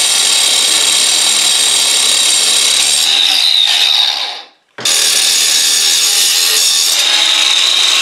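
DeWalt angle grinder with a cutting wheel cutting off protruding steel bolt ends: a steady high whine under load. It stops about four and a half seconds in and starts again half a second later for a second cut.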